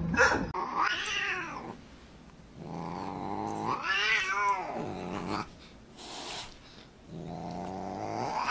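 Siamese cat yowling at a dog as they tussle: three drawn-out cries, rising and falling in pitch, the longest in the middle.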